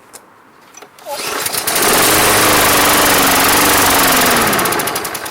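Briggs & Stratton 190cc mower engine catches about a second in and runs steadily for about three seconds, then slows, falling in pitch and level near the end. This is a start attempt on a freshly cleaned carburetor.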